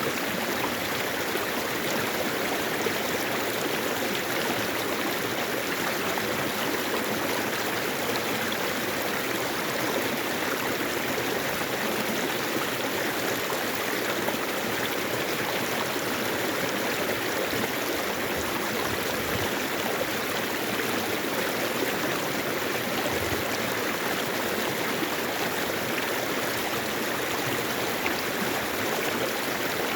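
Mountain stream flowing over rocks, a steady rushing and babbling of water.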